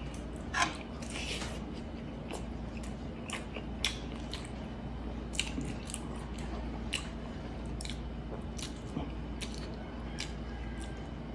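Close-mic chewing of braised pork hock: wet chewing with short sharp lip smacks every second or so, the loudest about half a second in.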